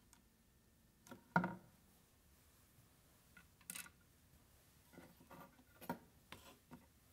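A few light knocks, taps and a brief scrape as small wooden workpieces and hand tools are handled and set down on a wooden workbench, the loudest knock about a second and a half in.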